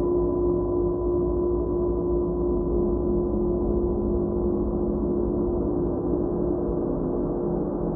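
Ambient background music: a steady, sustained drone of held ringing tones over a low hum, without beat or break.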